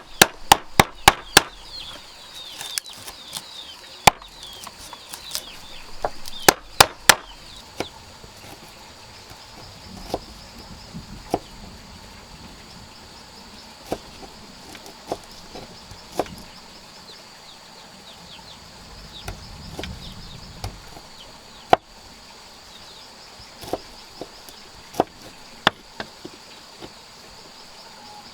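Chopping bamboo with a blade: a quick run of sharp strikes at the start, then single strikes every second or two.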